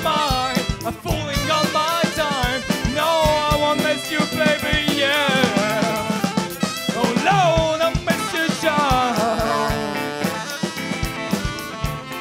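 A live band playing: a drum kit keeps a regular beat under bass and guitars, while a lead melody line bends and wavers in pitch above them.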